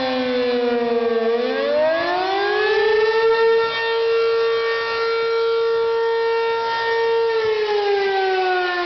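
ACA P-15 outdoor tornado siren sounding a wail: the pitch slides down, climbs back up about two seconds in, holds a steady tone for around four seconds, then starts falling again near the end.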